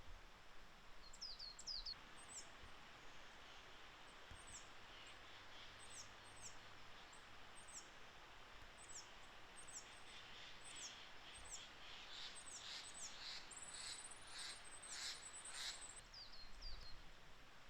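Coal tit singing: a faint series of short, high, thin notes repeated about once a second, growing louder in the later part, where a high thin trill joins in.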